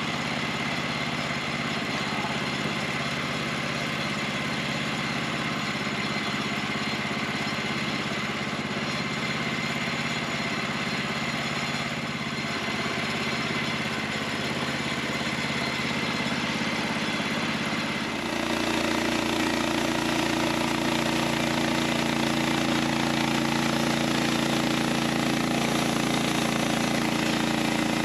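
Small gasoline engine on a Norwood LumberMate LM29 portable bandsaw mill idling steadily, then about two-thirds of the way through it speeds up and runs louder at a steady higher pitch. This is the engine throttled up to spin the band blade before a cut.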